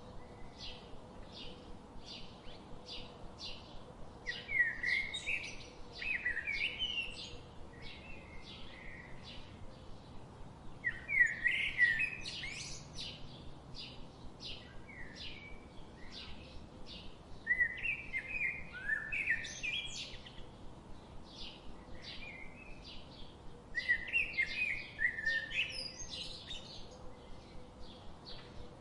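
Birds singing: a steady series of short, high chirps about two a second, with louder warbling song phrases of quick up-and-down notes coming back every five or six seconds. The loudest phrase falls about twelve seconds in.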